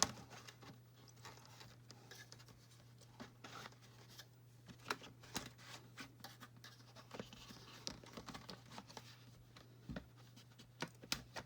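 Small plastic doll-furniture pieces being handled and fitted together: scattered faint clicks and scrapes of plastic against plastic, over a steady low hum.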